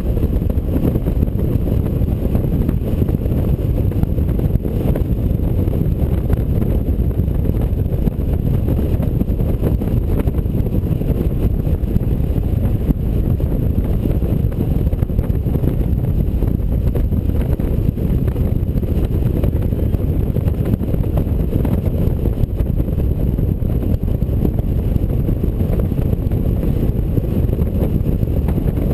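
Steady low rush of wind and road noise from a touring motorcycle cruising at speed, with wind buffeting the microphone.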